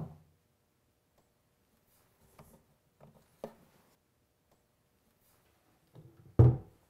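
A few faint light clicks of handling on the plywood cabinet, then one soft, deep thump about six and a half seconds in: a cabinet door closing against small rubber bumpers.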